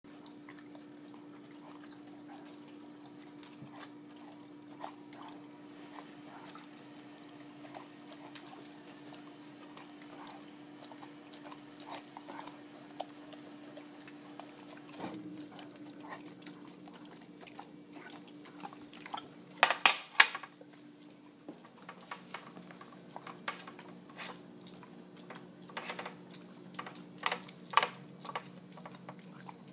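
Dogs licking and chewing cake: many short wet smacks, laps and clicks, with a cluster of louder knocks about twenty seconds in. A steady low hum runs underneath and drops in pitch about halfway through.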